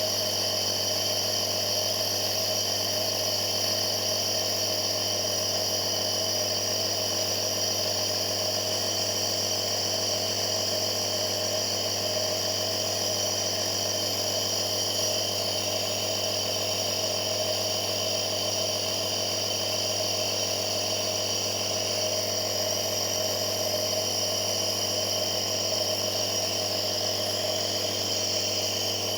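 Nebulizer's compressor running during an inhalation treatment: a steady mechanical whirring hum that does not change.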